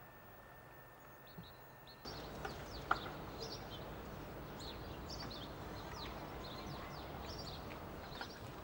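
Small birds chirping over a low steady background rumble. About two seconds in, the ambience steps up in level and the chirping becomes dense and frequent, with a single sharp click about a second later.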